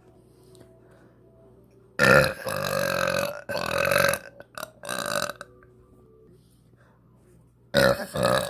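A girl burping loudly: a long, drawn-out burp about two seconds in, running almost straight into a second one, then a couple of short ones, and another burp near the end.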